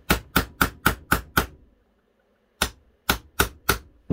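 Ball-peen hammer tapping a pin punch to drift a pin out of a Browning Auto-5 shotgun's bolt, which rests on a wooden armorer's block. The sound is a run of about seven quick blows, roughly four a second, then a pause of about a second, then four more.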